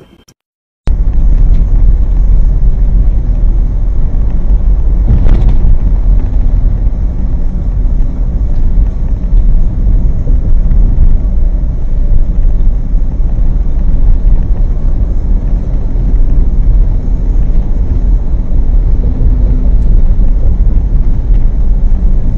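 Steady low rumble of a car driving on a highway, picked up by a dashcam microphone inside the cabin: engine, tyre and road noise. It starts abruptly about a second in.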